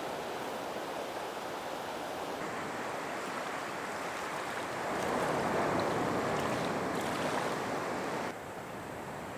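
Steady rushing noise of water, swelling louder about five seconds in and dropping off suddenly near the end.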